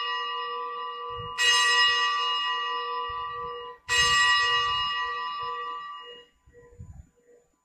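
Altar bell rung at the elevation of the consecrated host: a bell already ringing from a strike is struck again about a second and a half in and again about four seconds in. Each strike rings out and fades, and the ringing dies away about six seconds in.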